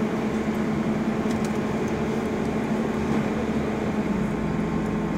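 Road vehicle's engine running and tyre noise heard from inside the cabin while driving, a steady hum whose note shifts lower about four seconds in.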